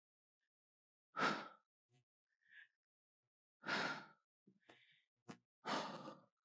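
A woman breathing hard from exertion as she does curtsy lunges with a dumbbell: three short, breathy exhales about two seconds apart, one with each lunge.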